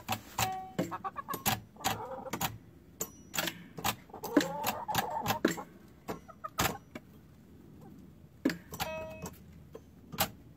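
Hens clucking softly among a string of sharp taps and clinks as they peck around. About nine seconds in there is a brief pitched note.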